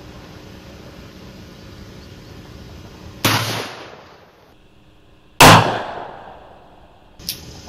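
Two shots from a .44 cap-and-ball revolver, a Pietta reproduction of the Colt 1860 Army with an 8-inch barrel, about two seconds apart, each crack ringing out with a long fading echo; the second is the louder. A shorter, weaker crack comes near the end, over the steady hum of a generator.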